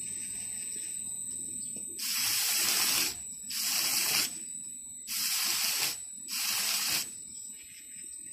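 Wooden workpiece pressed four times against the spinning abrasive brush drum of a DTW-60A brush sanding machine, each pass a hissing scrub of about a second, over a steady high-pitched whine.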